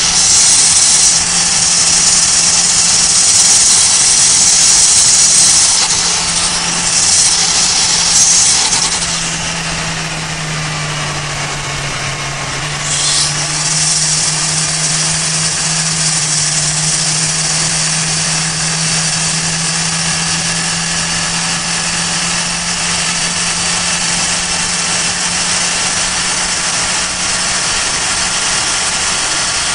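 Turbocharged Toyota Avanza Veloz 1.5's four-cylinder engine pulling at highway speed, heard from inside the cabin: a steady engine note under a loud high hiss of turbo spooling, with the treble boosted. About nine seconds in the hiss fades and the engine note dips as the throttle eases, then both come back around thirteen seconds in as the car pulls back up to speed.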